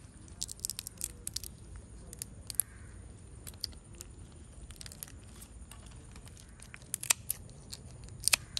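Shell of a giant freshwater prawn being peeled and cracked by hand: scattered sharp crackles and clicks, bunched about half a second to a second and a half in and again around seven seconds. Near the end comes a snip of scissors into the tail shell.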